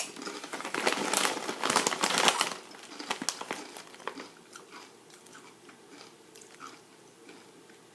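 Kettle-cooked potato chips bitten and chewed close to the microphone: loud, dense crunching for the first couple of seconds, then softer chewing that fades out by about halfway through.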